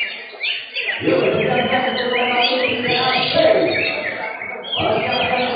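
Several cucak hijau (greater green leafbirds) singing together, a dense run of quick sweeping chirps and trills. From about a second in, a crowd of people's voices rises loudly beneath the birdsong.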